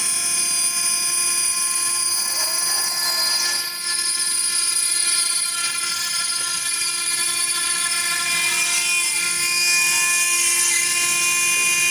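The 5.5 kW spindle of a stone CNC engraving machine running at speed while its bit engraves stone, a steady high whine of several held tones over a hiss of cutting, dipping briefly about four seconds in.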